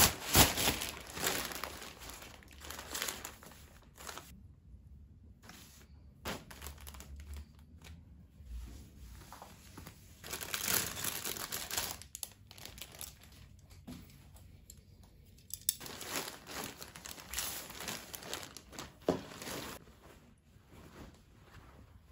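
Plastic courier mailer bag crinkling and rustling as it is opened by hand and clothes are pulled out of it, in irregular bursts with short pauses, loudest at the start.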